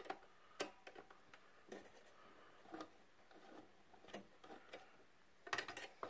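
Faint, irregular clicks and taps of a small screwdriver working the spring-loaded mounting screws of a CPU cooler, with a quick run of clicks near the end.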